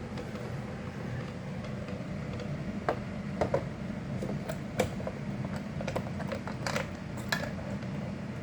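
Window air conditioners running with a steady low hum, cooling. Several light clicks or taps sound through the middle.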